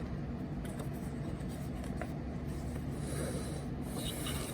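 Rustling of a paper instruction leaflet as it is handled and leafed through, with soft brushing and faint clicks over a steady low hum.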